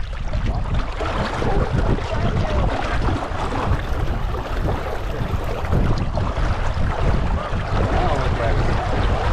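Wind buffeting the microphone in a steady low rumble, with water lapping and gurgling against a small sailboat's hull.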